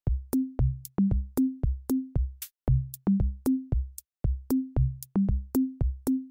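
Electronic music with a fast, steady drum-machine beat: punchy low drum hits, each with a short pitched bass note, and sharp clicks on top.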